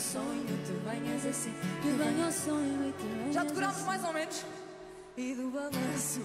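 Live pop band playing, with women singing the melody over electric guitar and bass. The music dips briefly about five seconds in, then picks up again.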